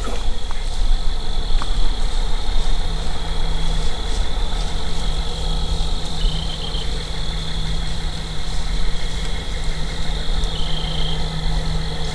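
Steady low drone of a running engine, with a constant low rumble under a hum that sets in about three seconds in and holds steady.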